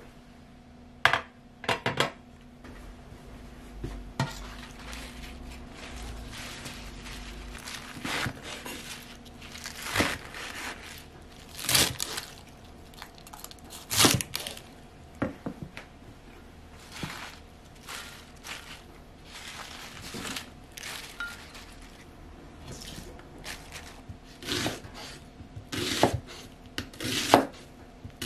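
Kitchen food-prep sounds: a container of vegetables set down with a couple of clatters about a second in, then a kitchen knife cutting through leafy greens and striking a wooden cutting board in irregular knocks, and near the end a knife cutting into an onion on the board.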